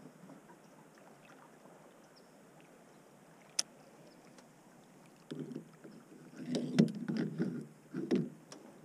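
Knocks and rattles of a fishing rod and gear being handled in an aluminum boat, starting about five seconds in and loudest twice near the end. Before that, only a faint hiss of water and wind, with one sharp click.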